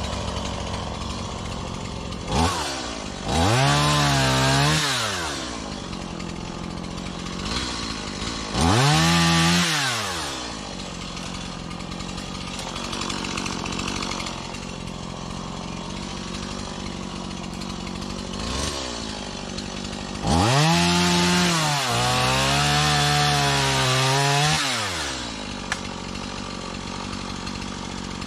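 Small Stihl chainsaw idling, revved to full throttle three times for a few seconds each to cut into small trees, with a short blip of the throttle in between. The engine stops abruptly at the very end.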